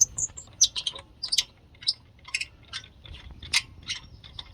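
Ratchet wrench clicking irregularly as a loosened wheel bolt is spun out of the hub.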